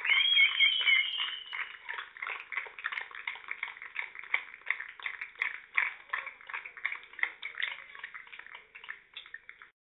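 Excited shouts from players celebrating the winning wicket, then scattered handclapping that thins out and stops just before the end. The sound is thin, with neither deep nor high tones, as from a small stream microphone.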